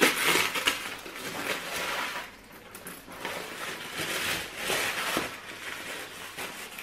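Tissue paper rustling and crinkling as a handbag is unwrapped and lifted out of its box, in uneven spells with a short lull a little past two seconds in.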